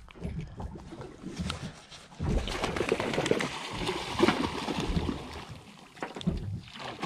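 An albatross splashing and flapping its wings on the sea surface, a busy stretch of splashes starting about two seconds in and lasting about three seconds.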